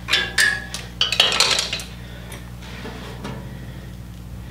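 Metal parts and tools clinking and clanking as they are handled during disassembly. There are several sharp knocks with ringing in the first two seconds, then only a few faint ones, over a steady hum.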